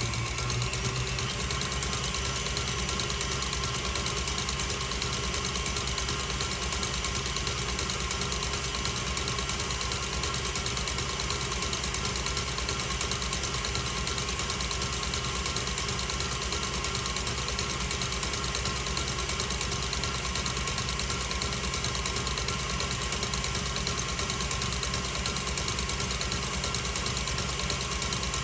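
Electric mixer running steadily with its whisk whipping meringue toward stiff peaks, the motor's pitch rising slightly at the very start.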